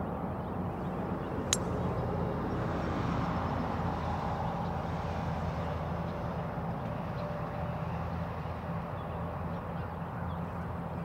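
A golf iron strikes the ball once, a single sharp click about a second and a half in, over a steady low outdoor rumble.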